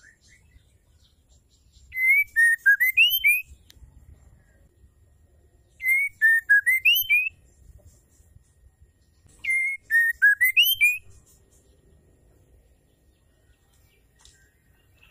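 Female white-rumped shama singing the same short whistled phrase three times, about four seconds apart. Each phrase is a run of clear whistles that dip and then climb at the end. It is the female's call that keepers use to set male shamas singing.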